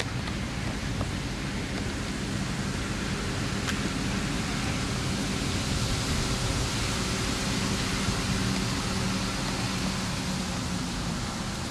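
Steady outdoor background noise: an even rushing hiss with a faint low hum underneath, and no distinct events.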